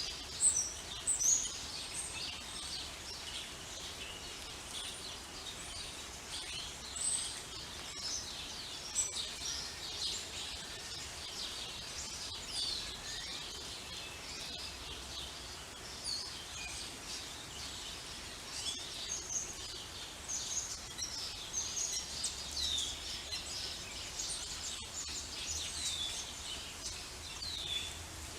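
Light rain falling steadily while many songbirds chirp and sing, with quick calls and short trills overlapping throughout and a few louder chirps at the start.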